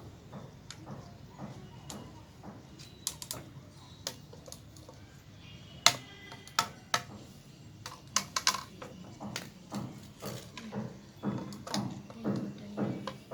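Hollow clicks and knocks of uPVC pipe pieces and tee fittings being handled and pushed or tapped together, with no glue. Near the end the knocks come quicker and more regular.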